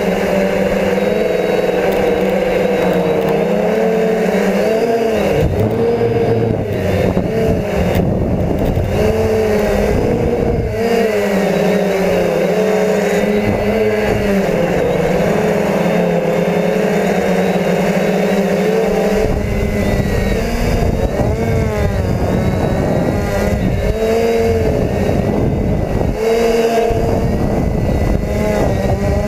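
DJI F450 quadcopter's motors and propellers whining steadily, the pitch rising and falling as the throttle changes. Wind rumbles on the onboard GoPro's microphone, heavier in the second half.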